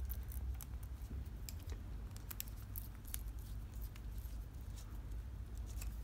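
Small screwdriver working the screws of a plastic terminal block while wires are handled: faint, scattered clicks and ticks, most of them in the first half, over a steady low hum.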